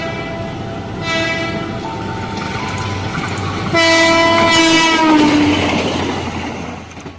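Train horn sounding several blasts over the rumble of moving trains, the loudest and longest as an oncoming passenger train passes close by, its pitch dropping as it goes past. The sound fades out near the end.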